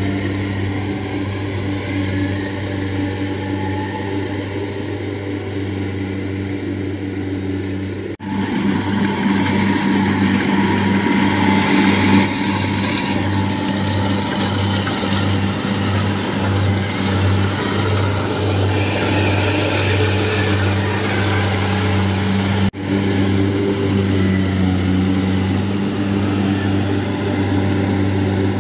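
Rice combine harvester's diesel engine running with a steady hum while it cuts and threshes rice. The sound breaks off abruptly twice, about eight and twenty-three seconds in. Between the breaks the machine is closer and louder, with a throbbing low pulse.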